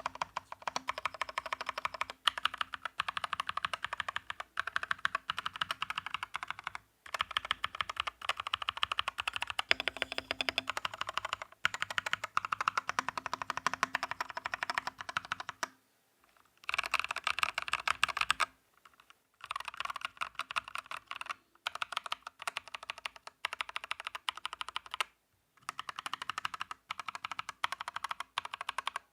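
Typing on a Gamakay LK67 65% mechanical keyboard fitted with unlubricated Holy Panda tactile switches and PBT XDA-profile keycaps: rapid keystroke clacks in runs of a few seconds, with brief pauses between runs.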